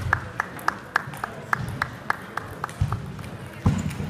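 A table tennis ball bounced over and over, an even run of light pings at about four a second that stops about two and a half seconds in. A dull thump follows near the end.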